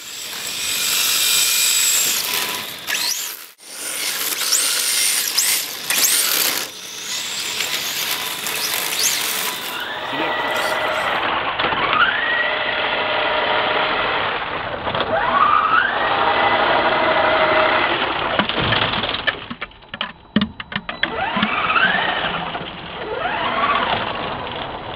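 Electric RC drift cars (HPI E10) running on asphalt: repeated rising motor whines as they accelerate, over a steady hiss of tyres scrubbing the road.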